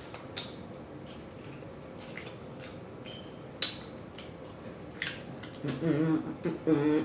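Pizza being chewed close to the microphone, with sharp wet mouth clicks and smacks about once a second. In the last second or so, a voice sounds through a full mouth.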